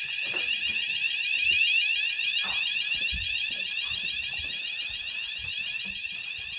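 Building fire alarm sounding continuously: a loud, high-pitched electronic tone that warbles rapidly, with a few faint low knocks underneath.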